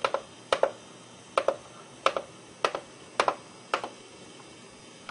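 Front-panel buttons of a Roland XP-80 synthesizer clicking as they are pressed one after another, each press a quick double click. Seven presses come at a steady pace, about one every half second, and stop about four seconds in.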